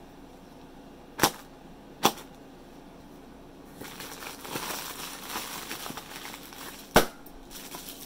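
Plastic-film air pillows (Sealed Air EarthAware packing) crinkling as they are handled and pulled out of a cardboard box, from about four seconds in, with three sharp pops: two close together early and one near the end.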